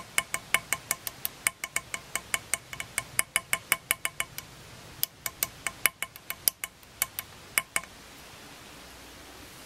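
Small chasing hammer tapping a steel chasing punch to chase fine texture into metal: quick, light, evenly spaced taps, about five a second, each with a short metallic ring. The tapping breaks off briefly just after four seconds in, resumes, and stops near the end.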